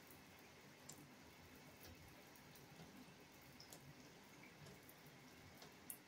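Near silence: faint room tone with a few sparse, faint drips of water falling into an empty bathtub, the sharpest one near the end.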